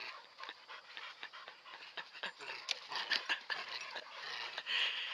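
Dog panting hard in a quick run of short breaths.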